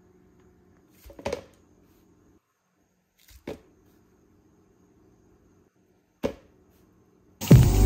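Three short knocks a couple of seconds apart over a faint steady hum, then music with a heavy beat starts near the end.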